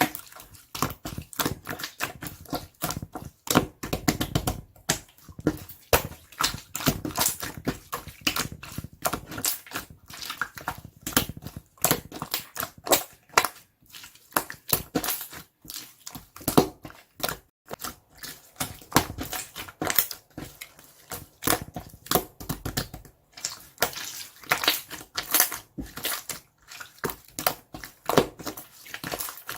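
Hands squishing, pressing and folding a mixed slime, giving a dense, irregular run of sticky clicks and pops.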